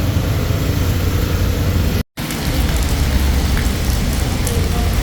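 Rain falling over steady road traffic, with a constant low rumble of vehicles. The sound drops out completely for a split second about two seconds in, then the rain and traffic carry on.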